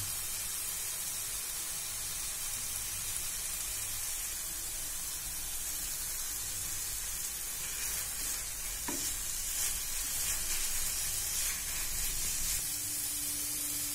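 Grated carrot halwa sizzling steadily in a nonstick frying pan, with a wooden spatula stirring through it a few times in the second half.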